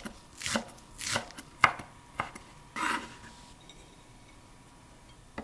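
Kitchen knife chopping green onions on a wooden cutting board: four crisp chops about half a second apart, then one longer stroke about three seconds in, after which it goes quiet.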